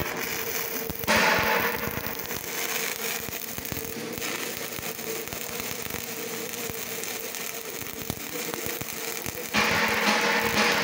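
Stick-welding arc (covered electrode, from a Tiger 250 welder in electrode mode) burning on a metal pipe seam, crackling and sputtering steadily. It gets louder about a second in and again near the end.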